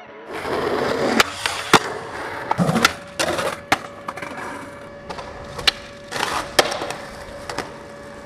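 Skateboard wheels rolling on concrete, with several sharp clacks of the board hitting the ground; the rolling is loudest in the first three seconds.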